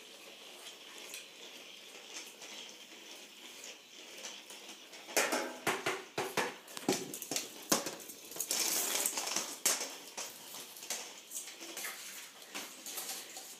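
Motorized weasel ball toy rolling and bumping across a hard floor: quiet at first, then from about five seconds in a string of sharp clacks and knocks with a rattling clatter for a couple of seconds.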